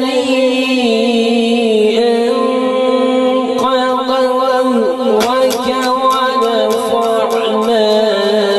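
Male Quran reciter (qari) chanting tilawat solo and unaccompanied into a microphone, holding a long ornamented melodic line that slides and wavers in pitch without a break.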